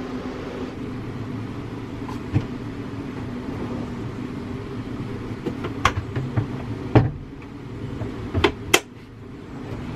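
A steady low hum with a handful of sharp knocks and clicks, irregularly spaced, the loudest about seven seconds in and a quick pair near the end.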